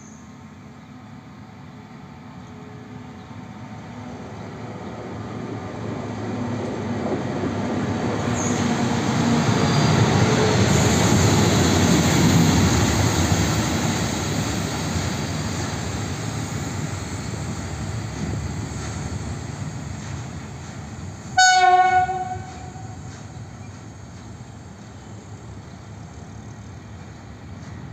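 WM15A track motor car running through with a ballast hopper wagon: its engine and wheels on the rails swell as it passes and then fade as it moves away. One short horn blast sounds about three-quarters of the way through, the loudest moment.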